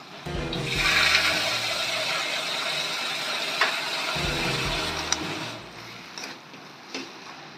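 Potato and pea curry frying in a kadhai: a steady hiss over a low rumble, with two sharp clicks of a metal spatula against the pan, fading down about five and a half seconds in.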